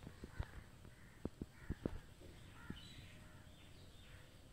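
Several sharp clicks and taps in the first two seconds, then faint bird calls in the background.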